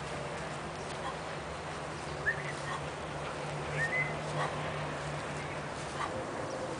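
A few short, high animal calls, scattered, over a steady low hum that stops about six seconds in.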